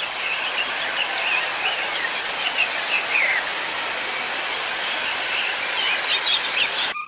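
Small birds chirping and twittering over a steady outdoor hiss, the chirps coming in scattered quick squiggles throughout; the sound cuts off abruptly near the end.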